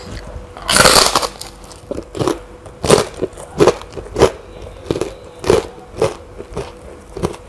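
A crisp, puffy white cracker (kerupuk) bitten with one loud crunch about a second in, then chewed with a string of sharp crunches, about one and a half a second.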